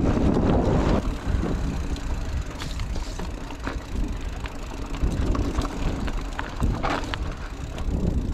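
Mountain bike riding over a dirt trail: tyre noise with the bike rattling and clicking over bumps. Wind buffets the microphone heavily for about the first second.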